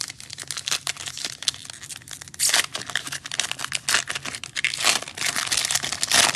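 A Panini Mosaic football card pack's foil wrapper being torn open and crinkled by hand: a continuous crackling rustle with louder rips about two and a half seconds in, near five seconds, and at the end.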